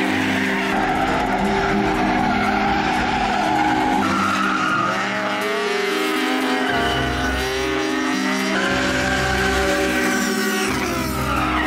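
Drift cars sliding with tyres squealing and engines revving hard, with wavering squeal tones and rising and falling engine pitch, over background music.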